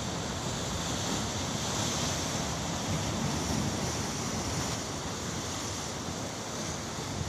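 Sea surf breaking and washing over shore rocks, a steady rushing noise.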